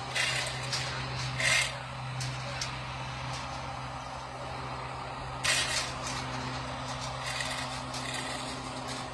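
Engine of the crane lowering the sculpture running steadily, with several short bursts of hiss.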